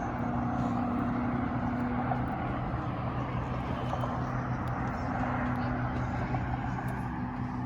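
A vehicle engine running steadily: a low, even hum under a wash of noise.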